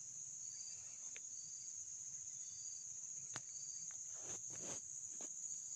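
Insect chorus making a steady high-pitched drone, with a faint short chirp repeating about once a second. There are a few light clicks, and some rustling near the end.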